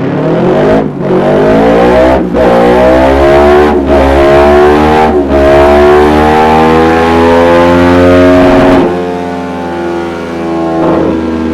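Kawasaki ER-6n 649 cc parallel-twin engine, with a Dominator aftermarket exhaust, running hard on a dyno. Its pitch climbs steadily for about nine seconds, with four brief dips along the way. The throttle then closes and the engine drops to a lower, steadier note.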